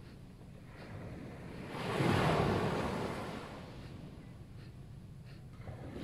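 Surf breaking and washing up the beach: one wave swells about two seconds in and fades over the next two seconds, and the next begins near the end.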